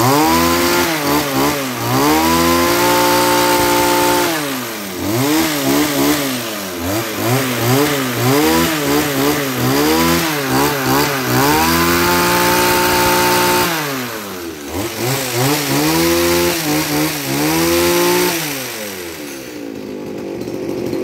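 Tanaka TBH-2211 hedge trimmer's 22cc two-stroke engine being revved: it climbs to full throttle and holds a high, steady pitch for a second or two at a time, is blipped up and down several times in between, and drops back to idle near the end.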